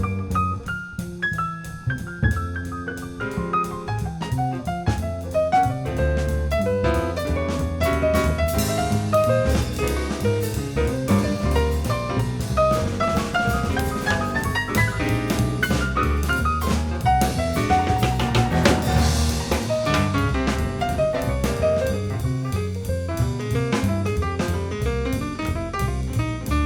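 Background music: an instrumental jazz piece with piano, drum kit and bass, playing at a steady beat.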